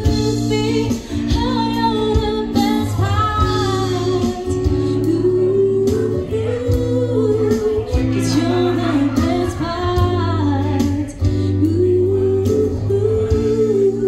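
A woman singing a song live into a microphone, amplified through PA speakers, with acoustic guitar and steady held chords over a low bass.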